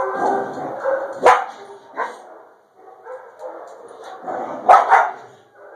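Golden retriever puppy barking in short, sharp outbursts, loudest about a second in and again near the end, while a hand is pushed at its head as it eats: aggressive food guarding over its bowl.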